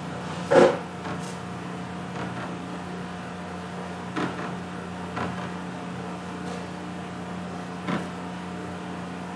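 Steady low electrical hum, with a few brief knocks: the loudest about half a second in, and fainter ones around four, five and eight seconds in.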